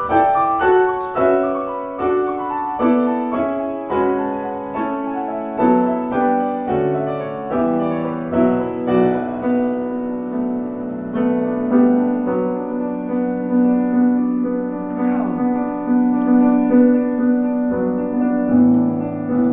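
Piano accompaniment for a choral piece, playing a flowing pattern of evenly spaced notes, with a longer-held low note under it from about halfway through.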